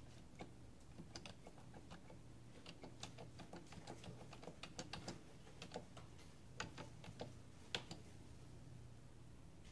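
Keys of a Remington Lektronic Nixie-tube desktop calculator being pressed: a run of soft, irregular key clicks, quickest in the middle, with one louder click a little before the end.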